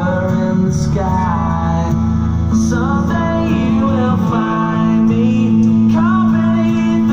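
Pop song with a male singing voice over strummed acoustic guitar and a steady bass line, played back through a pair of JBL Control 1 compact monitor speakers with 4-inch woofers.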